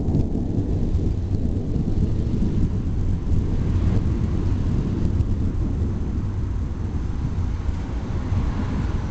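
Distant thunder rumbling low and steady, with no sharp crack.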